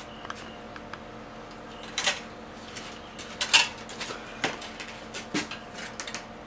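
Scattered clinks, clicks and scrapes of a mountain-bike wheel and its parts being handled during reassembly, the loudest about two seconds and three and a half seconds in.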